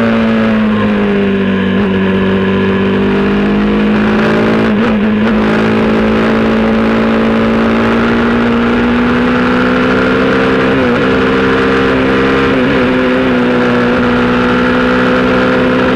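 Quad bike engine running at cruising speed close up. Its note falls over the first couple of seconds, then holds nearly steady and creeps up, with a few brief breaks in the note.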